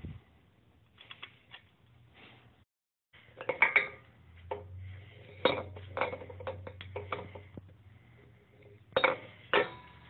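Light metallic clinks and knocks of a ceiling fan's metal housing and parts being handled close to the microphone, in clusters of sharp taps, loudest about four seconds in and near the end.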